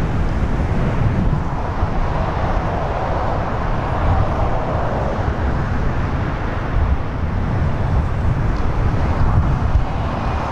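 Dassault Falcon 7X's three turbofan engines at approach power as the business jet passes low and moves away, a steady jet noise that swells a few seconds in and then eases. Wind rumbles on the microphone.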